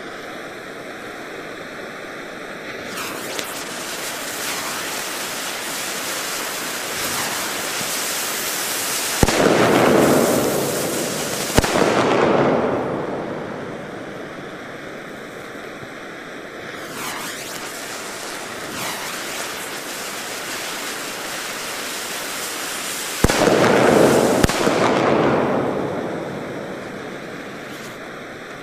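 El Gato Mascleta Manual firecrackers going off: two pairs of sharp bangs about a quarter-minute apart, over a continuous rushing hiss that swells around each pair.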